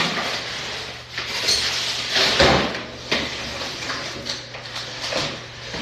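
Cardboard packaging of a mini fridge being handled and opened: a run of irregular scrapes, rustles and knocks, the loudest about two seconds in.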